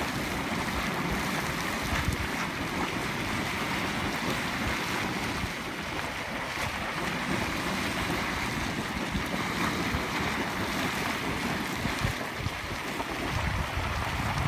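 Small geyser vent splashing steadily, boiling water spraying and spattering back onto the sinter at the edge of a hot spring pool. Wind buffets the microphone.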